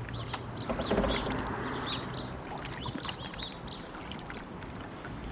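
Water dripping and splashing from kayak paddle strokes, with a few faint high chirps between about one and three and a half seconds in.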